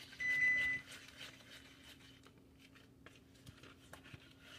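A kitchen appliance's electronic beeper sounding one long steady high beep, the last of a series, ending about a second in. Faint scattered clicks and a low steady hum follow.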